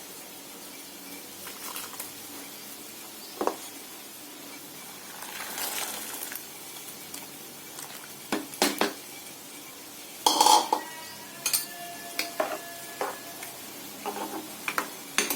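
Steel kitchen cookware and utensils clinking and clattering: a few separate knocks, then a louder clatter about ten seconds in followed by ringing metal tones, over a steady faint hiss.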